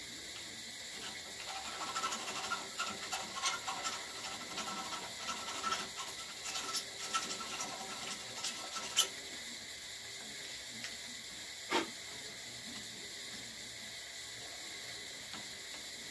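Hand file scraping on a freshly cut metal nozzle piece in short, irregular strokes, cleaning up the cut. The filing stops about nine seconds in with a sharp click, and a single short knock follows a few seconds later.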